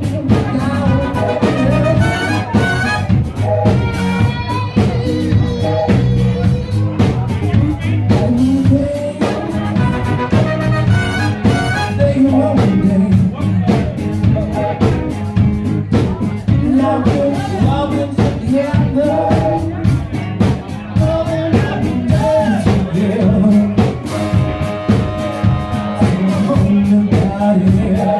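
Live band with a horn section playing a dance cover song loudly: a lead vocal over a drum kit and horns, heard through a phone's microphone.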